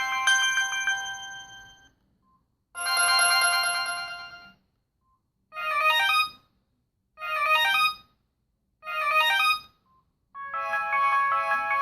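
Preloaded ringtones of a Samsung T469 Gravity mobile phone playing in turn. An electronic melody fades out, and after a short gap a chiming phrase plays. Then a short phrase repeats three times, about a second and a half apart, and near the end a new melody starts.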